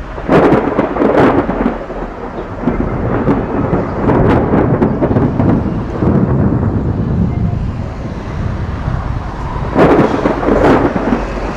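Thunder from nearby lightning strikes: sharp cracks just after the start and again near the end, with rolling rumble in between.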